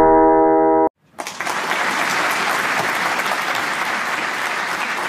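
A held electronic synth chord cuts off abruptly about a second in; after a brief gap, applause from a crowd follows, steady to the end.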